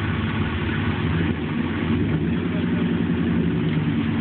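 A Subaru and a GMC pickup truck running their engines together under load while trying to drag the rear-wheel-drive truck out of deep mud. The steady engine note climbs a little about two seconds in.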